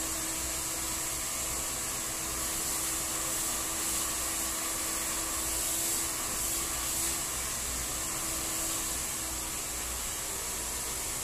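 Handheld hair dryer running steadily, a motor hum under a rushing hiss of air, as hair is blow-dried over a round brush.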